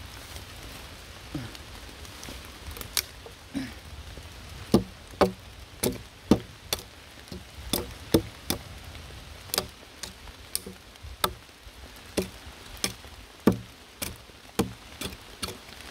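Marinated meat frying in a hot pan on a camping stove, the fat crackling and popping irregularly, about two sharp pops a second.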